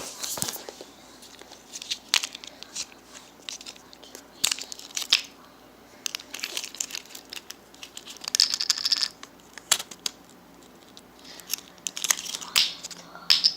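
Irregular crinkling and tearing sounds with scattered short clicks and taps, from material being handled and pulled apart by hand.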